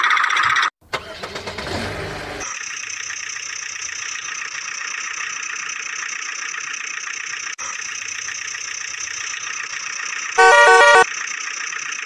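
A vehicle engine starts up and then runs steadily. Near the end a horn sounds loudly once for about half a second.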